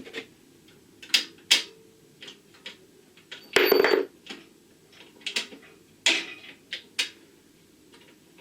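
Metal clinks and knocks of bolts and tools against steel while bolting a trolley to a compressor. About three and a half seconds in there is a louder clatter of metal on metal that rings briefly.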